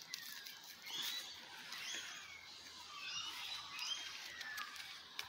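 Australian magpies making many short squeaky, whistled calls, each note briefly sliding up or down in pitch, with a few faint clicks among them.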